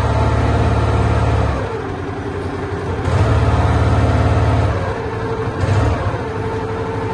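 Long-tail boat's engine running, its throttle opened and eased: the deep pulsing engine note swells loud for the first second and a half, again from about three to five seconds in, and briefly near six seconds.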